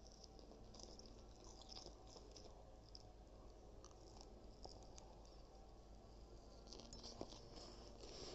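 Faint, irregular chewing and crunching over a low steady hum.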